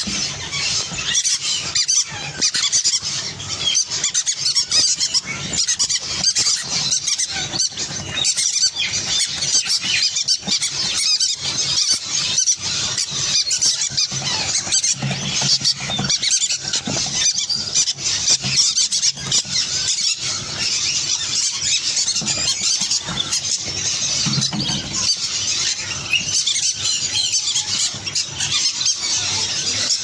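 A flock of green-cheeked conures, adults and young together, squealing and chattering in a shrill, continuous chorus.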